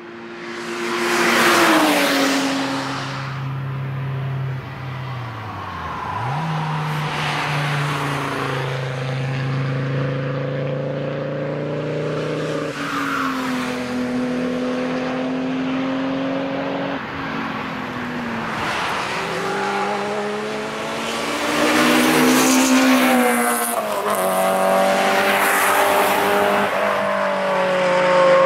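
Cars passing at speed one after another, their engines revving up and down through lifts and gear changes, the first a BMW E36 3 Series. The engine note drops sharply about six seconds in and climbs again. The loudest moments are a pass about a second and a half in and another near the end.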